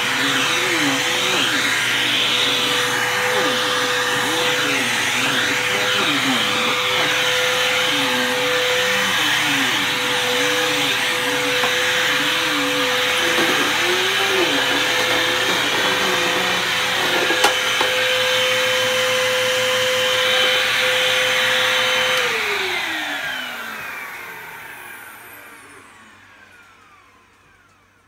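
Bissell CleanView II bagless upright vacuum cleaner running steadily, with a wavering lower tone as it is pushed over rug and tile floor. There is a single click about 17 seconds in. About 22 seconds in the motor shuts off and winds down, falling in pitch and fading out.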